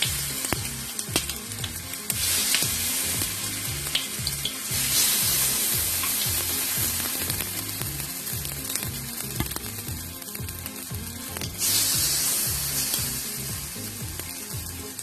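Semolina and curd batter sizzling in hot oil in the cups of a multi-cup frying pan as it is spooned in. The sizzle swells louder a few times, with light clicks.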